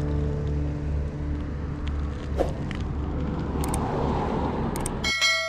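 Wind and road noise while riding a bicycle along a road with traffic, over a low steady hum. A bright ringing chime starts near the end.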